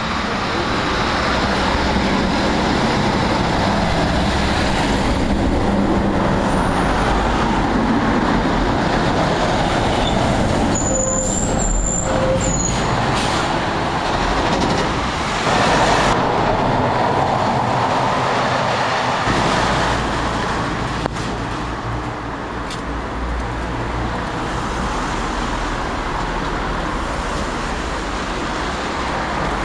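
Road traffic passing close by on a narrow street: an articulated curtain-side lorry goes past with engine and tyre noise, followed by cars and general street traffic. A brief high squeal comes about eleven seconds in.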